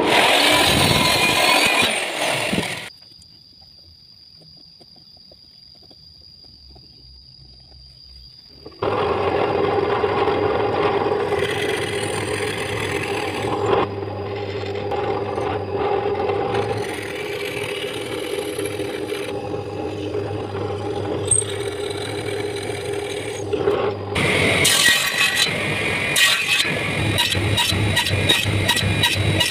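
A miter saw cuts through a wooden board and stops about three seconds in, leaving a few seconds of low room noise. Then an electric drill runs steadily as it bores a 9 mm hole in wood, its cutting sound coming and going in several pushes. Near the end a small table saw runs and cuts wood, with a fast, even ticking.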